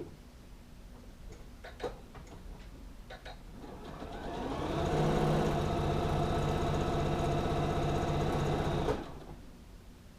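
Electric sewing machine stitching: a few light clicks, then the motor spins up over about a second, runs steadily for about four seconds, and stops abruptly.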